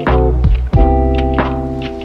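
Music: sustained organ-like keyboard chords over a low bass, with a few deep drum thumps. The chord changes about three quarters of a second in.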